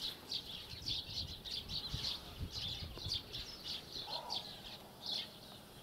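A flock of sparrows chirping together, a continuous chatter of quick, short chirps.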